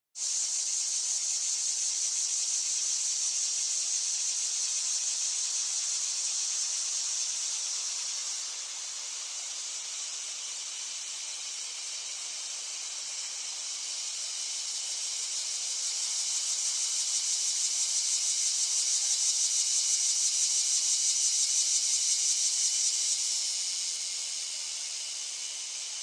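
Cicadas buzzing: a steady, high-pitched shrill that dips about a third of the way in, then swells again with a faint fast pulsing before falling off near the end.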